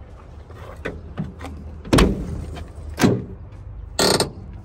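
Steel door of a junked car being worked open: two loud clunks about a second apart, then a longer, harsher bang near the end.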